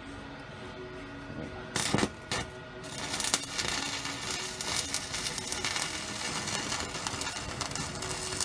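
Welder tacking and running a bead on a car's exhaust pipe: two short crackling bursts about two seconds in, then a steady crackle from about three seconds in that stops at the end.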